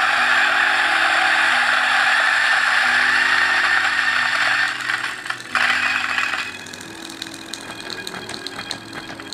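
DF64V single-dose coffee grinder with 64 mm flat burrs, running at 800 RPM and grinding a dose of coffee beans: a loud, steady grinding noise for about five seconds, a brief surge, then from about six and a half seconds a much quieter running with faint ticking as the last few beans go through the burrs and grounds still trickle out.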